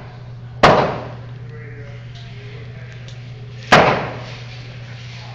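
Two loud gunshots about three seconds apart, each dying away in a short echo, over a steady low hum.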